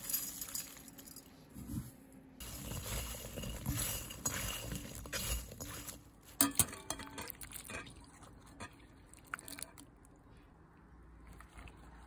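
Sliced bitter melon being handled in a glass bowl: rustling stretches in the first half, then a cluster of sharp clinks about halfway through, as from a metal wire skimmer knocking against the glass, and a few lighter clicks after.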